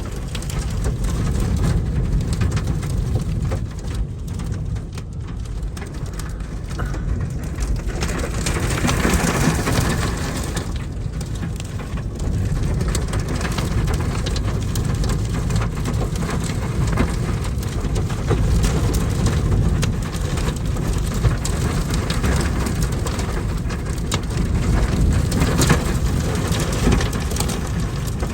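Extreme gustnado-like thunderstorm winds buffeting against a vehicle: a heavy rumbling wind noise on the microphone with a rushing hiss above it, swelling and easing in gusts.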